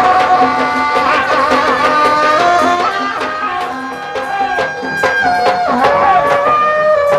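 Traditional folk music: an ornamented, wavering wind-instrument melody over a steady beat of hand drums.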